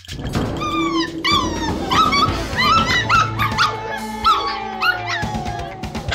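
Doberman puppies yipping and whining in quick, high-pitched cries, several a second, over background music.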